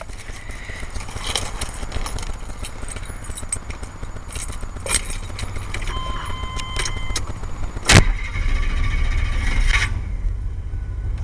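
Keys jingling, a short steady beep, then the 1988 Chevy Silverado 1500's engine cranks and catches about eight seconds in on a cold start. It revs briefly, then settles into a steady, quiet idle through new exhaust manifolds.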